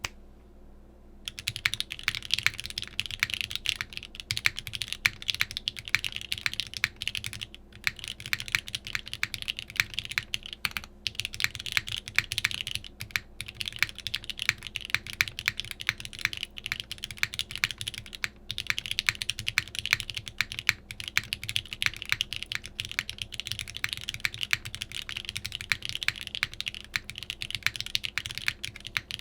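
Fast, continuous typing on a custom 60% mechanical keyboard (polycarbonate Bakeneko60 case, aluminium plate, stem-lubed Gateron CJ linear switches), a dense stream of key clacks. It starts about a second in and pauses briefly a few times.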